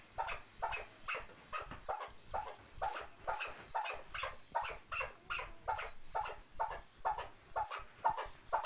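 Chukar partridge calling: a steady, rhythmic run of short repeated notes, about three a second.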